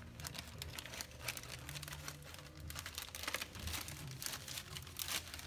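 Clear plastic zip-lock bag crinkling and rustling as it is handled, in short irregular crackles.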